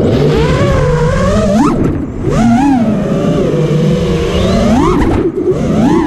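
Five-inch FPV racing quadcopter's four brushless motors and tri-blade props whining as it flies, the pitch swooping up and down sharply with each throttle punch, over heavy rushing of air on the onboard microphone.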